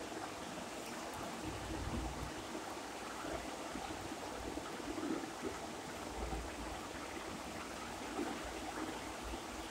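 Steady rushing background noise, with a few soft low thumps about two seconds and six seconds in.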